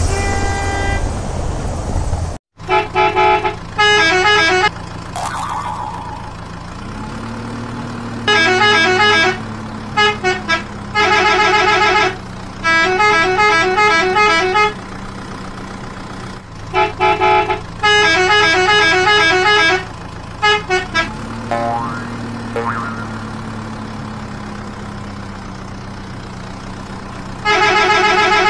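A vehicle horn honking in repeated bursts, each a rapid warbling run of tones, over a steady engine drone. The drone rises in pitch once about a quarter of the way in and again about three-quarters in. The horn bursts are the loudest sound.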